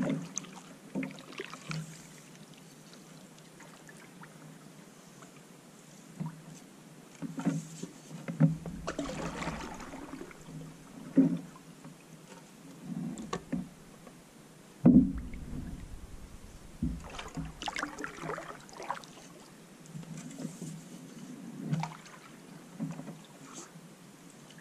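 A canoe being paddled: irregular paddle strokes and water splashes, with a few knocks against the hull. The loudest knock comes about fifteen seconds in.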